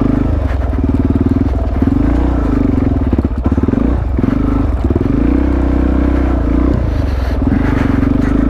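Supermoto motorcycle engine running while being ridden. The engine note drops and picks back up several times as the throttle is eased and reopened.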